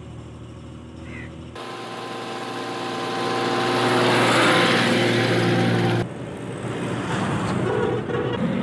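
Suzuki FX hatchback's three-cylinder engine, first a low steady hum at idle. Then the car drives over at close range, its engine and tyre noise swelling to a peak about four seconds in before cutting off suddenly. Steadier road and engine noise follows.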